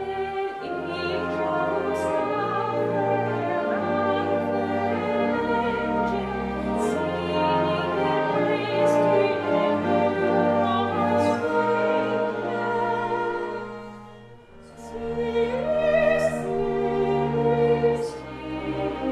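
Soprano singing a Christmas carol with vibrato over a chamber orchestra of strings, woodwinds and French horn. The music thins out briefly about three-quarters of the way through, then the voice and orchestra come back in.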